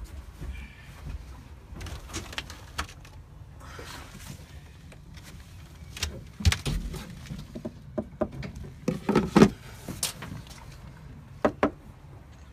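Footsteps and handling knocks on a fibreglass boat deck: irregular clicks and thumps, with a louder cluster of knocks about three-quarters of the way in and two sharp knocks near the end.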